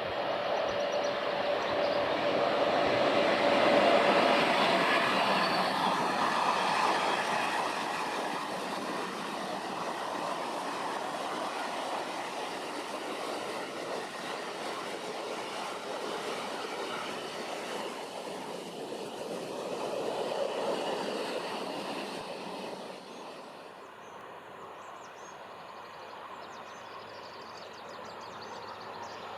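A train passing on the rails, loudest about four seconds in, swelling again around twenty seconds and then dropping away sharply near the end.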